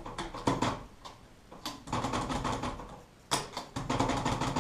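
1967 Hermes 3000 manual typewriter clicking as its carriage mechanism is worked, with a few sharp clacks and quick runs of clicks, as the margin release and backspace are being tried out.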